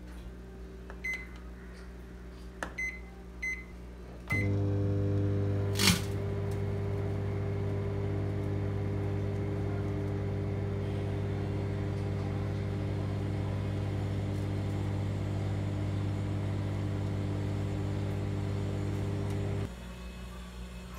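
Microwave oven keypad beeping about four times, then the oven running with a steady electrical hum for about fifteen seconds before it stops. A single sharp snap comes a couple of seconds after it starts, while the aluminium-foil chocolate wrapper inside sparks.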